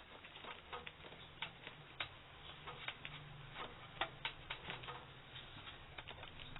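Irregular light clicks and taps from handling objects, several a second, over a low steady hum.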